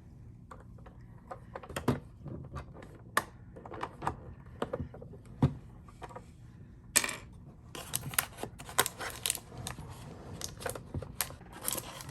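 Small hard plastic doll accessories clicking and tapping as they are handled. About seven seconds in, plastic packaging crinkles sharply, and crinkling and clicks continue to the end.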